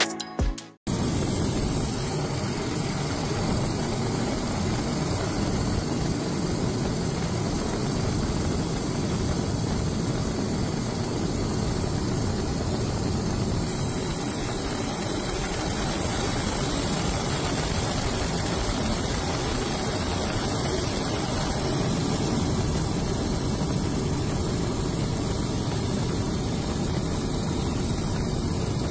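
Steady engine noise of the aircraft filming from the air, an even, unchanging rumble and hiss.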